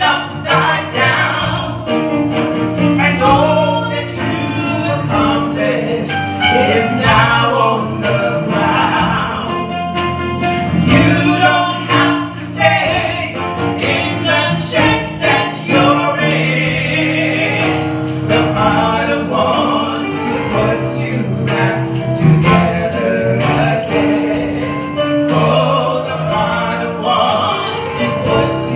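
Two women singing a gospel praise song into microphones, backed by electric keyboards.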